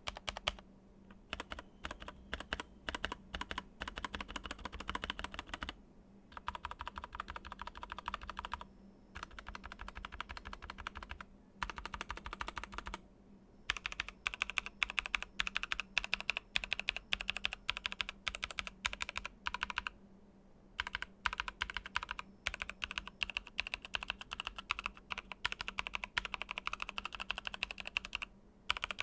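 Typing on a Keychron K8 aluminium mechanical keyboard with lubed, foam-modded NovelKeys Cream linear switches: fast runs of keystrokes in bursts of a few seconds with short pauses between. The new, not yet broken-in switches still have a scratchy sound despite the lube.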